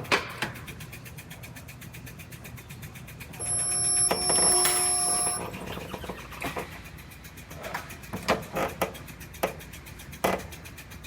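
A power tool runs for about two seconds near the middle with a steady whine. Sharp clicks and knocks of metal bodywork come before and after it.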